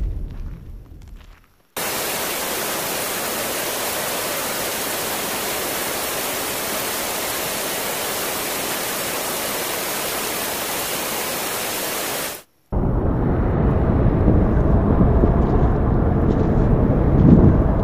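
Wind rumble on the microphone fades out in the first two seconds. Then a steady, even static-like hiss runs for about ten seconds, starting and stopping abruptly. After it, gusty wind rumble on the microphone returns.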